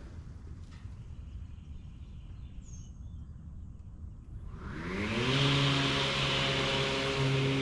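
Toro Revolution Grandstand battery-powered stand-on mower's electric motors spinning up about four and a half seconds in: a rising hum that levels off into a steady whine with a loud rush of air, after a quiet stretch of low background rumble.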